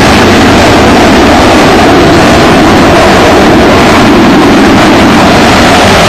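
Tejas fighter's single turbofan jet engine at high power during the takeoff roll and rotation, a loud steady roar that overloads the camcorder microphone and sounds distorted.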